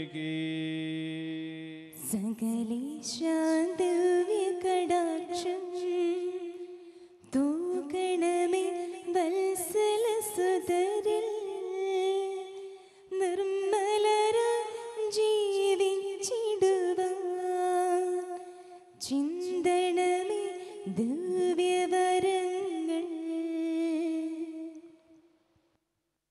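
A man's chanted hymn line ends about two seconds in; a higher, woman's voice then sings a slow devotional hymn melody in four long phrases, the last one fading out near the end.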